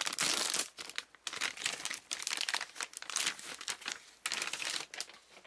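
A new hard disk drive's packaging being crinkled and torn open by hand: irregular rustling and crackling of wrapping.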